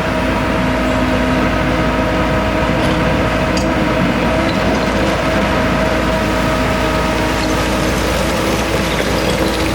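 Hyundai R130 Smart crawler excavator's diesel engine running steadily while working, with steady whining tones over a dense rumble.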